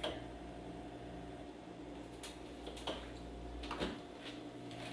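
A few faint knocks and clicks from someone searching through kitchen cupboards, over a steady low hum in the room.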